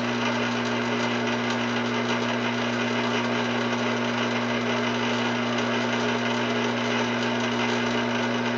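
Fortg BV20L bench lathe running steadily at minimum speed in reverse, a constant motor hum with mechanical whir, as it backs a threading die off a freshly cut screw thread.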